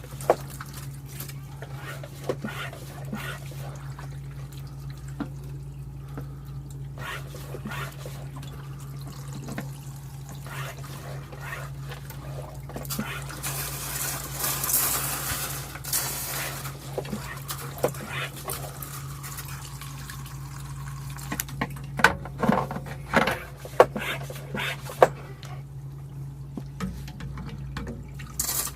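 Water running and trickling over an iced-up walk-in freezer evaporator coil to melt the ice off, with a louder hissing rush about halfway through and a few sharp knocks near the end, over a steady low hum.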